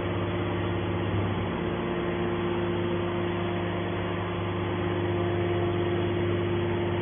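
Hydraulic scrap baler's power unit running with a steady hum and a constant tone.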